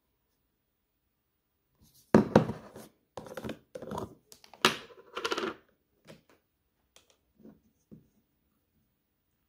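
Handling noises: after a near-silent start, a cluster of rustling, scraping and sharp knocks lasting about four seconds, then a few faint clicks.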